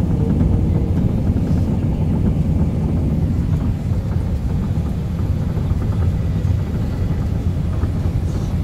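Steady low rumble inside the cabin of an Airbus A380-861 airliner during its approach and landing, airflow and engine noise heard from a passenger seat.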